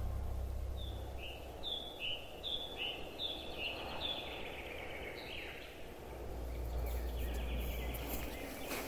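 A bird calling repeatedly: each call is a short high note dropping to a lower one, about once a second for several seconds, over faint outdoor background noise. A low rumble comes in about two-thirds of the way through.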